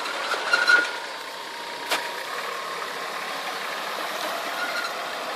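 Toyota Land Cruiser ute on Maxxtracks rubber track units, its engine running at low revs as it creeps forward on the tracks. A few brief high squeaks near the start and a sharp click about two seconds in.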